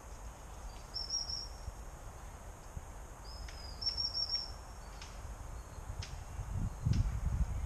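A small bird calling twice in short, high twittering phrases, over a low rumble of wind on the microphone that grows louder near the end.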